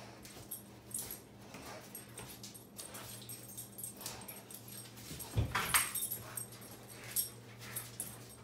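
Golden retriever spinning after its own tail on a tile floor: its claws click and scrabble on the tiles, with a short vocal sound from the dog about five and a half seconds in.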